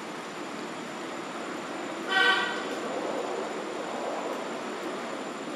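A single short toot with a steady pitch, about half a second long, comes about two seconds in and is the loudest sound, over a steady background hiss and rumble.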